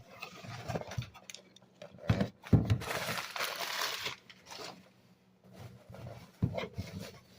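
Packaging being handled during an unboxing: several knocks, with a stretch of rustling and crinkling about three seconds in.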